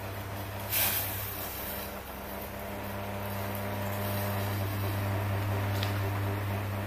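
Steady low electric motor hum, like a kitchen appliance or extractor fan, slowly growing a little louder, with a brief rustle about a second in as vegetables are tipped into the saucepan.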